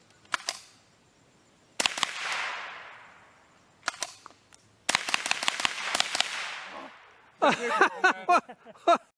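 Ruger 10/22 .22 LR semi-automatic rifle firing: a few single shots, then a fast string of about eight to ten shots about five seconds in, each shot followed by a short echo.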